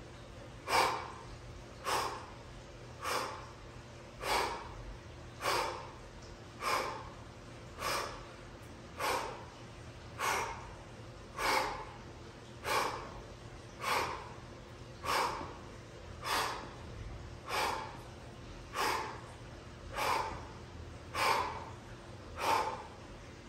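A man's short, forceful breaths out, one on each side-to-side turn of a weighted Russian twist. They come in a steady rhythm, about one every 1.2 seconds.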